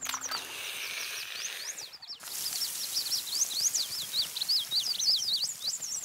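A flock of small songbirds chirping quickly and continuously, many short high chirps overlapping, over a steady hiss of water being sprayed and splashed from an elephant's trunk.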